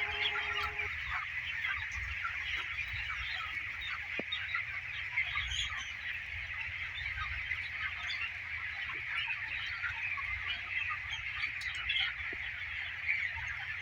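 A broiler chicken flock calling all at once, a dense continuous chatter of many birds over a low rumble. A steady hum cuts off about a second in.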